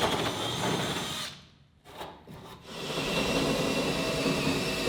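Power drill boring into wood, cutting out about a second and a half in, then running steadily again from about three seconds in.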